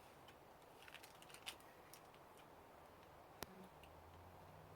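Near silence with a few faint clicks and one sharp click about three and a half seconds in, from a knife cutting chilled fudge and setting pieces on a plate. A faint low hum starts near the end.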